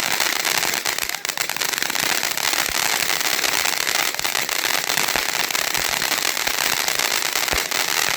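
A consumer ground firework crackling: a dense, steady stream of small rapid pops over a hiss.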